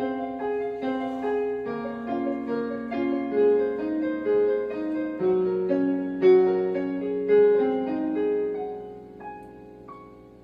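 Piano music: a slow melody of single notes over held lower notes, fading away near the end.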